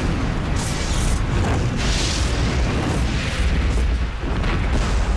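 Airplane crash: a heavy, continuous low rumble of explosion and fire, with several louder rushing surges.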